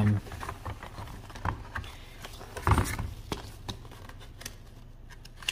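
Clear plastic clamshell packaging crackling and clicking as it is pulled apart and the printed card insert is slid out, with a louder crackle about three seconds in.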